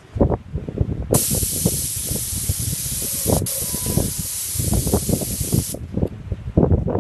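Gravity-feed air spray gun hissing as it sprays paint, in two long bursts: the first starts about a second in, there is a brief break around three and a half seconds, and the spraying stops just before six seconds. Uneven low rumbling runs underneath.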